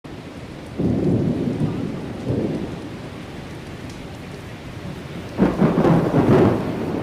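Thunder rumbling over steady rain: a sudden rumble about a second in, a smaller one a little later, and the loudest, longest rumble about five and a half seconds in.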